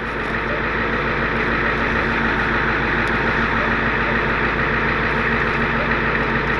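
Tow truck's engine running steadily at a constant speed during a winch recovery.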